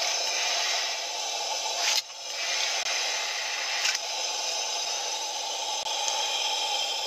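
A steady hiss that cuts out sharply about two seconds in and comes back, with a faint tick near four seconds.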